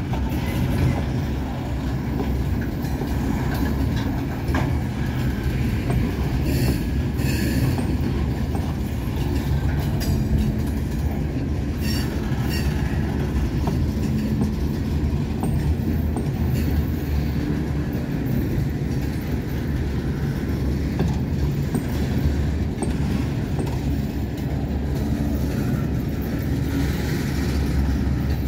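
Freight cars of a passing train rolling by: a steady rumble of steel wheels on the rails, with sharp clacks now and then as wheels cross rail joints.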